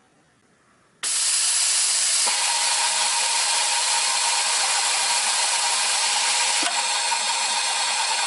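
Kingtex direct-drive cylinder-bed coverstitch sewing machine starting suddenly about a second in and then running steadily at high speed, a dense, hissy mechanical run with a faint steady tone in it.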